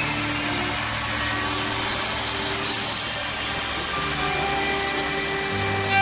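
Electric wood trimmer (compact router) running at full speed and cutting into the wooden door to make the pocket for the lock. It gives a steady high whine over the noise of the cut.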